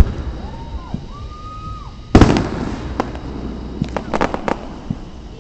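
Fireworks shells bursting: a sharp bang at the start and a louder boom about two seconds in. About four seconds in comes a quick run of crackling pops.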